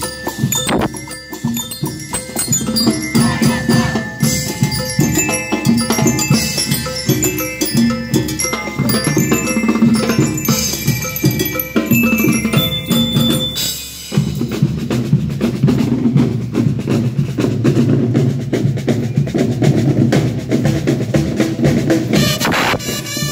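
School rhythm band playing: drums under a high, bell-like lyre (glockenspiel) melody. About fourteen seconds in, the bell melody drops out and a fuller, lower-pitched passage takes over.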